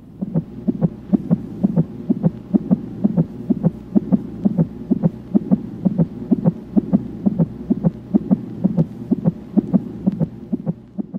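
Fetal heartbeat picked up by an ultrasound Doppler: quick, even whooshing beats, about two and a half a second, over a steady low hum.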